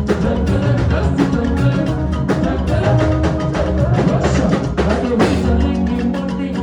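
Loud music played back with a steady drum-kit beat and heavy bass.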